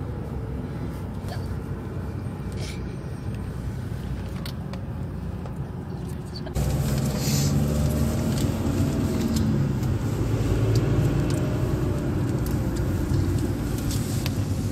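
Car interior road noise: a steady low rumble of engine and tyres heard from inside the passenger cabin while driving. It jumps abruptly louder about six and a half seconds in.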